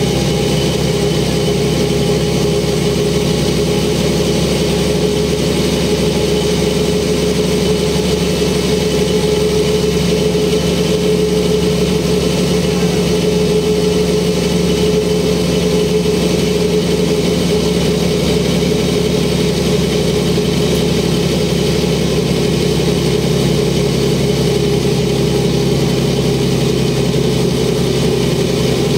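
The cabin sound of a 1994 Mercedes O405N city bus, its Mercedes OM447h six-cylinder diesel and ZF 5HP-500 automatic drivetrain running steadily. It is a low drone with a steady higher hum over it.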